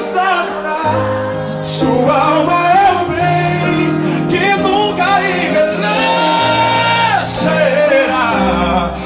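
Live gospel song: a man singing into a microphone over keyboard accompaniment, holding one long note about six to seven seconds in.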